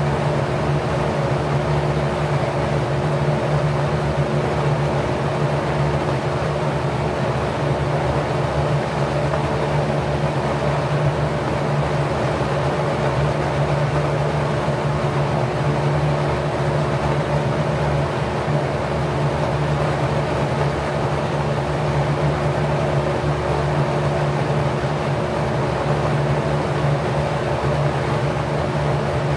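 Packard 99319 single-speed 1/5 hp electric motor running at about 1050 rpm, spinning a 20-inch four-blade LAU propeller of 27° pitch. It makes a steady hum over the rush of moving air.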